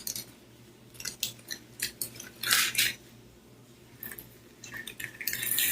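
Small plastic pony beads clattering into a bowl: scattered clicks and two short rattles.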